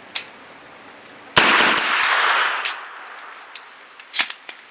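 Thureon Defense 9mm blowback carbine fired in a quick string of shots that run together into one loud burst lasting about a second. It is cycling from a ProMag magazine in a feed test. Light handling clicks come just before and near the end.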